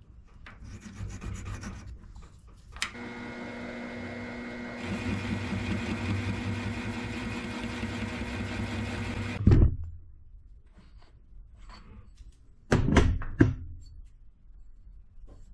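Milling machine starting with a click and running with a steady hum, while a boring head cuts the final 1 3/8-inch bore in a metal plate. The cutting noise gets louder about five seconds in, and the sound ends with a thump near ten seconds in. A couple of sharp knocks follow a few seconds later.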